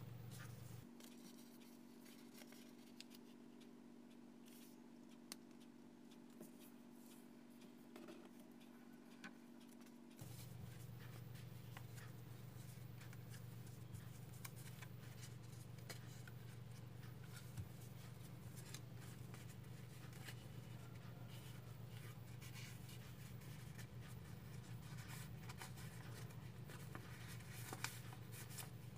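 Faint rustling and crinkling of a sheet of origami paper being folded and its creases pressed down by fingers, with scattered small clicks. A steady low hum runs underneath, changing in tone about ten seconds in.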